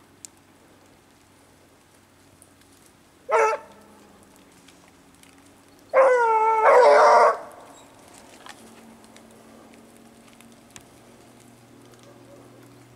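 A rabbit-hunting dog giving voice: one short yelp about three seconds in, then two longer, louder cries just after six seconds.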